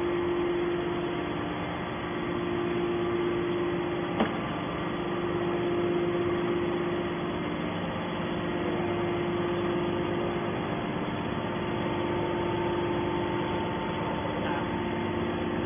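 Aluminium can baler's motor running with a steady hum, with a single sharp click about four seconds in.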